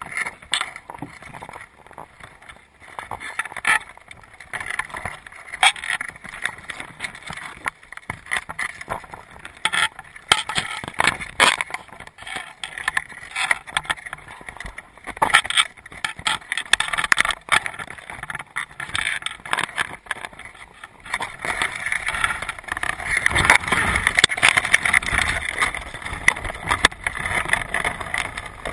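Crabs' legs and shells clicking and scraping against an underwater camera housing and the wire mesh of a crab trap: dense, irregular ticks and knocks. It gets louder and fuller from about 21 seconds in.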